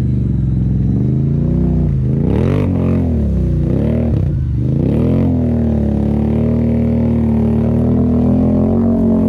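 ATV engine revving hard while the quad ploughs through a deep mud hole, its wheels spinning and throwing mud. The engine pitch swings up and down several times in the first half, then holds at high revs.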